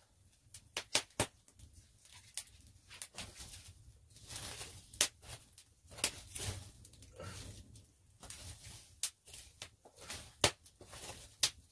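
Wood fire in a stone fireplace crackling, with sharp irregular pops, while sticks are handled and pushed into the flames.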